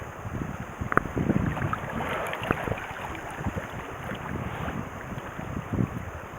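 Wind buffeting the microphone in gusts over a steady rush of water at the shore, with a single sharp click about a second in.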